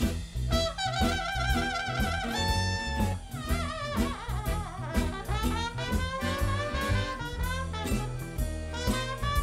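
Jazz music: horns play a melody with vibrato over a drum kit and bass.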